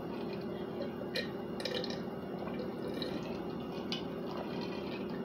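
Sipping a drink from a stemmed glass: a few faint wet sips and small clicks, over a steady low hum.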